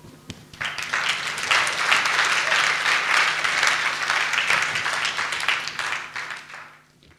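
Audience applauding after a poetry reading, building quickly about half a second in and fading out near the end.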